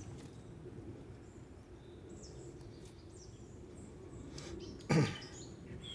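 Quiet outdoor ambience with a few faint bird chirps, and one short louder sound a little before five seconds in.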